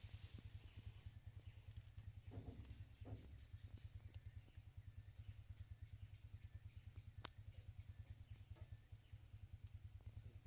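Steady high-pitched insect chirring, like crickets, over a low, evenly pulsing throb. A single sharp click comes about seven seconds in.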